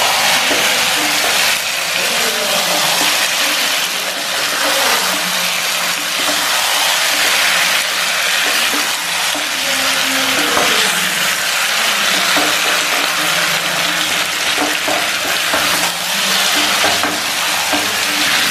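Chicken and potato pieces sizzling steadily in a thick masala in a nonstick kadai, while a wooden spatula stirs and scrapes them with small irregular clicks.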